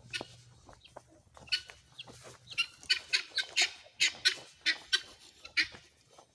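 Chickens clucking and squawking in a quick run of short, sharp calls, starting about a second and a half in and thinning out near the end.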